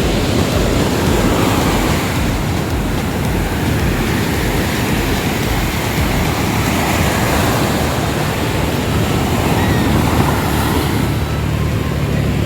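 Ocean surf washing onto the beach in a continuous, even rush, with wind rumbling on the microphone. A steady low hum comes in near the end.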